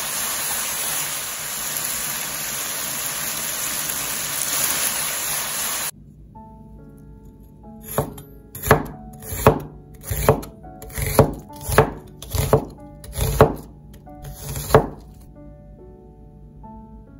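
Spaghetti with sausage and green pepper sizzling as it is stir-fried in a pan: a loud, steady hiss that cuts off suddenly about six seconds in. Then a chef's knife slicing an onion into strips on a bamboo cutting board, about ten sharp chops over seven seconds, with light background music.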